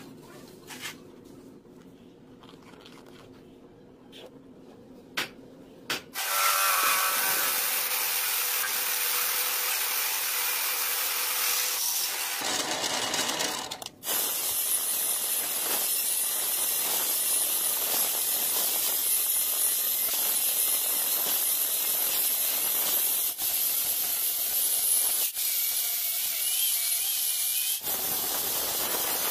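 A few light taps and scratches, then from about six seconds in a loud, steady power-tool noise as a twist drill bores into steel. It breaks off briefly twice and runs on to the end.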